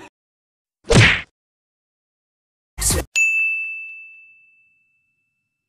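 Two short bursts of noise about two seconds apart, the first the loudest, then a single bright ding sound effect that rings out and fades over about a second and a half.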